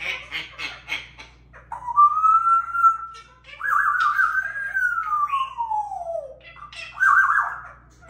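African grey parrot giving a quick "heh heh heh" laugh, then whistling: a long steady whistle, a wavering whistle that glides steeply down, and a short warbled whistle near the end.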